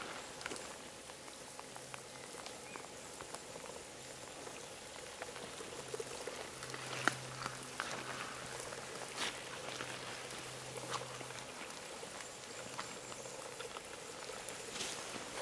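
Light rain pattering, with scattered drops ticking close by.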